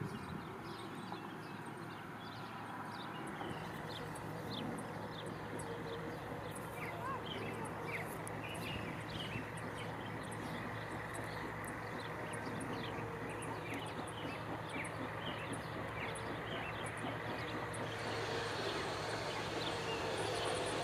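Birds chirping over a steady low hum that grows slowly louder.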